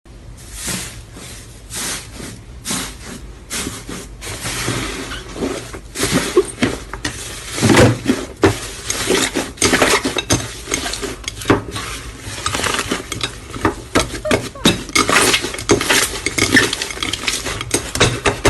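Slime being pressed and worked hard by hand, with crackling, clicking pops. The clicks are spaced out at first, then come thick and fast from about four seconds in.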